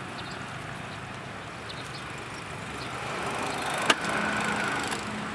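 Honda Beat motor scooter's small single-cylinder engine running at idle. A sharp click comes just before four seconds in, and after it the engine note is a little louder and steadier.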